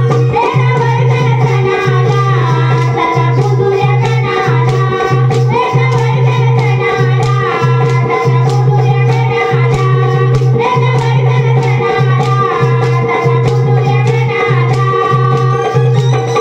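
Music: a melody with gliding, ornamented phrases that recur about every two seconds over a steady drone, a repeating bass note and shaker-like percussion.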